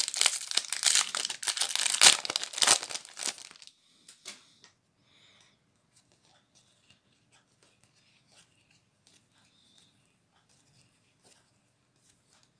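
Foil Magic: The Gathering booster pack wrapper crinkling and tearing open for about the first three and a half seconds. After that there are only faint, soft clicks as the trading cards are sorted by hand.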